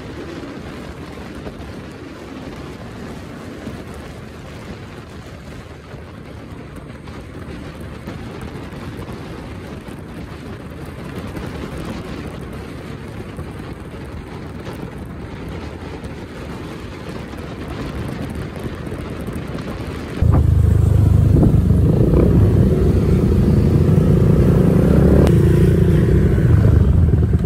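Honda PCX 150 scooter riding fast with a passenger at about 108 km/h: mostly steady wind and road rush over a faint engine note. About 20 seconds in, the sound changes abruptly to a much louder, lower, steady engine sound of the scooter moving on a rough road.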